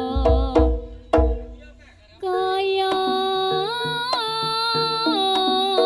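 Live Javanese jaranan music: hand-drum (kendang) strokes, a brief lull, then from about two seconds in a held melody line that steps in pitch over a steady percussion beat.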